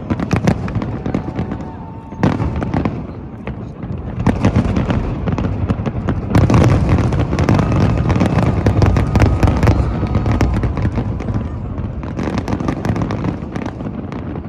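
Fireworks going off in rapid succession: a dense run of bangs and crackling that builds to its thickest about halfway through and eases near the end.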